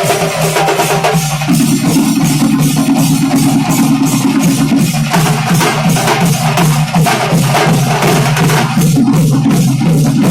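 Fast, loud kuthu-style festival drumming, a dense run of rapid drum strokes, with a low held melodic line coming in about a second and a half in.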